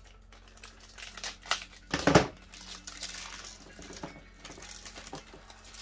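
Thin clear plastic parts bag crinkling and rustling as it is handled and worked open, with one louder crackle about two seconds in.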